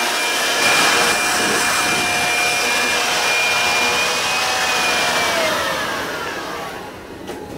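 Electric leaf blower running steadily with a whine, then switched off about four and a half seconds in, its pitch falling and the noise fading as the motor spins down.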